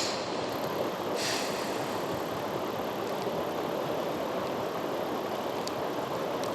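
Steady rushing of a mountain river, an even noise with no rhythm, and a brief hiss about a second in.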